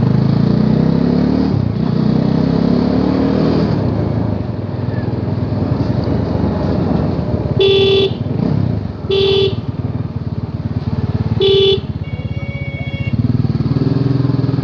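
Bajaj Dominar 400's single-cylinder engine running on the move, its pitch climbing twice in the first few seconds as it accelerates through a gear change. Midway a vehicle horn beeps three short times.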